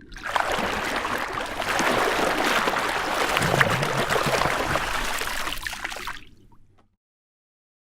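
Water running and gurgling with a dense, crackling splash texture, starting abruptly and fading out about six and a half seconds in.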